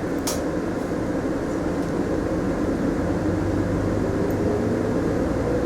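Mitsubishi Fuso Aerostar city bus heard from inside the cabin as it pulls away, its engine and drivetrain running steadily. A whine rises slowly in pitch over the last couple of seconds as the bus gathers speed. There is one short click about a third of a second in.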